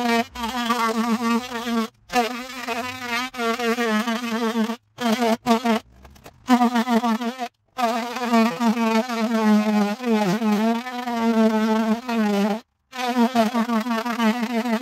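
DeWalt cordless oscillating multi-tool buzzing as its blade plunge-cuts through vinyl siding and the wood behind it. The pitch wavers with the load, and the tool stops briefly several times and starts again.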